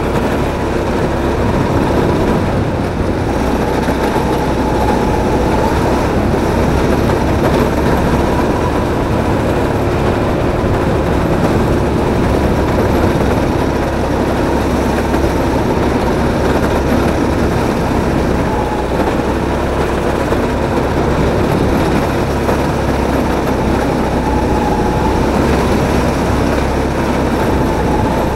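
Drift kart running at speed, heard from its onboard camera: a steady loud rumble of the drive and wheels with a faint whine that wavers slightly in pitch as the kart speeds up and slows.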